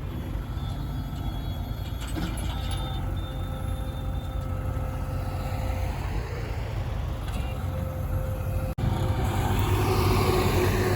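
Vehicle engine running with a steady low rumble; the sound cuts out for an instant about nine seconds in and comes back louder.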